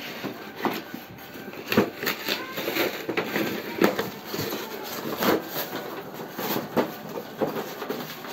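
A cardboard box and clear plastic packaging being pulled open and handled by hand: irregular rustling and crinkling with sharp taps and scrapes.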